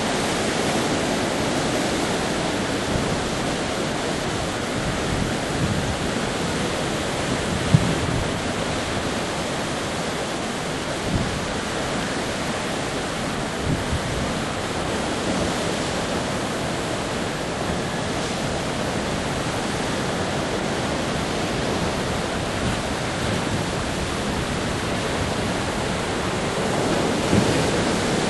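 Sea surf rushing and breaking over shore rocks: a steady wash of water, with a few brief sharper splashes and a surge near the end.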